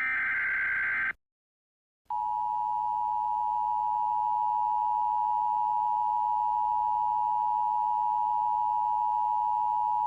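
Emergency Alert System broadcast: the end of a buzzing SAME header data burst about a second in, a second of silence, then the two-tone EAS attention signal held steady for about eight seconds before cutting off, announcing an emergency alert.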